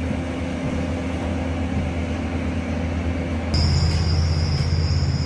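A vehicle engine idling with a steady low hum. About three and a half seconds in, the hum grows louder and a steady high-pitched whine joins it.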